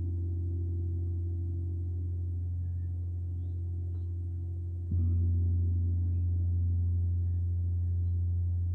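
Large hanging gong played with a soft felt mallet, ringing with a deep sustained hum. It is struck again about five seconds in, louder, and rings on.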